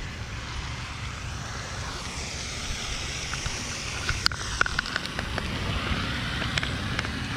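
Wind buffeting the microphone in a steady low rumble, with a splashy hiss that swells about two seconds in and scattered sharp clicks and taps in the second half.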